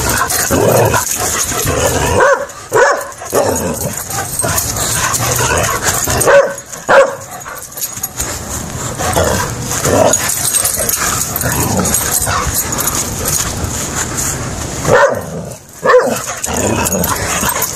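A McNab dog barking and yipping again and again as he pesters his owner to play. The loudest barks come in quick pairs, three times.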